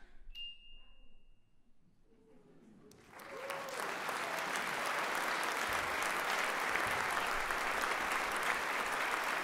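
The last brass chord fades away in the hall, then about three seconds in an audience starts applauding, swelling quickly to steady, sustained clapping.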